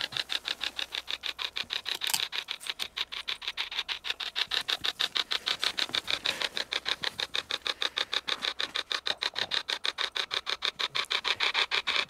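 Hack shack spirit box, a hacked radio, sweeping continuously through the stations: a fast, even chatter of short static bursts, about seven a second, throughout.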